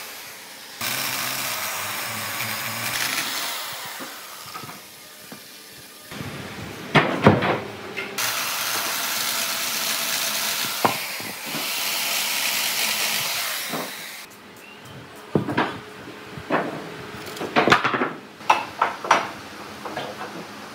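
Corded electric chainsaw running and cutting into a large wooden log in two long steady passes, with a couple of loud knocks between them. After the second pass the saw stops and a string of separate knocks and taps follows.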